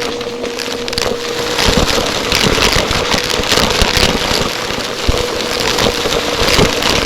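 Vacuum cleaner running close to the microphone: a steady motor whine under loud noise, with dense irregular crackling and clattering throughout.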